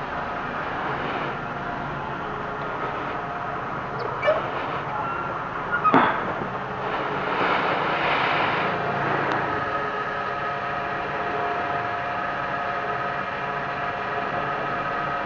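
Fuel dispenser running as unleaded petrol is pumped through the nozzle into a plastic gallon jug, a steady hum throughout. Sharp clicks about four and six seconds in.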